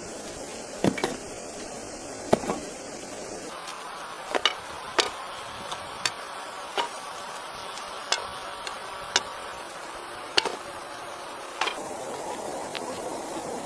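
Wood being struck with a hand tool: about a dozen sharp knocks at irregular intervals of roughly a second, some in quick pairs, over a steady background hiss.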